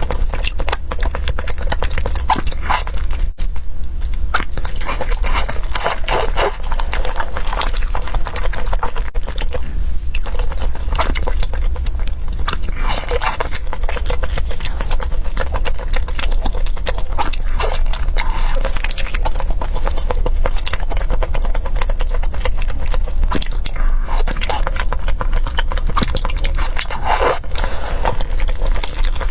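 A person chewing and biting soft, gelatinous beef tendon close to the microphone: a continuous run of wet, irregular mouth clicks and smacks, with a steady low hum underneath.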